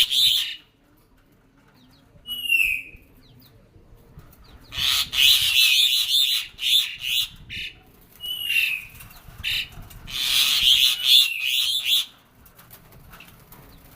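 Songbird singing: two long bursts of rapid chirps and trills, with short whistles sliding down in pitch between them.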